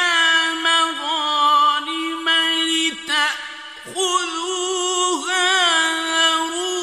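Male voice reciting the Quran in the melodic mujawwad style, holding long notes ornamented with quick trills and turns, with a short break about three seconds in.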